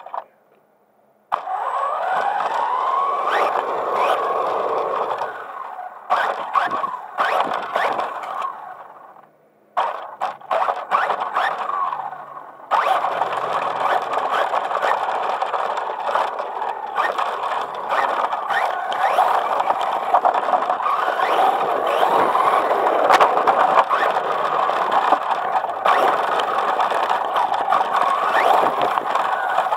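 Traxxas Stampede 4x4 RC truck driving, its electric motor and drivetrain whining over tyre noise on rough asphalt and gravel, heard from the cab. The run is stop-start at first, with a rising whine, short bursts and a brief pause, then steady through the second half.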